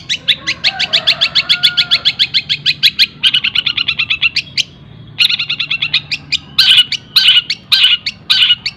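Long-tailed shrike (cendet) singing a fast, dense run of sharp repeated notes, about seven a second, in a song filled with mimicked collared kingfisher calls. There is a short break about five seconds in, then the notes come faster and end in four longer, harsher calls.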